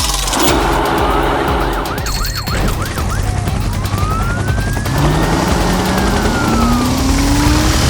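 Cartoon emergency-vehicle siren sound effect: a quick yelping warble for about a second, then one long slow wail rising and falling, with a lower tone climbing steadily under it in the second half, over background music.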